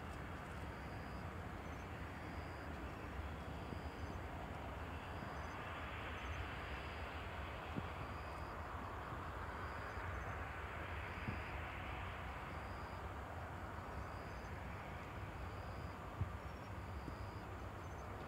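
Distant, steady rumble of a Boeing 747-8F freighter being pushed back before engine start, swelling slightly twice. Through it, an insect chirps in short, high pulses about once a second.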